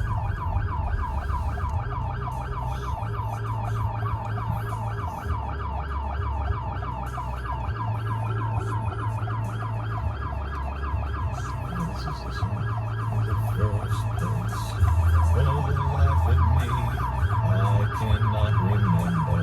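Emergency vehicle siren in a rapid yelp, a fast, even warble repeating several times a second.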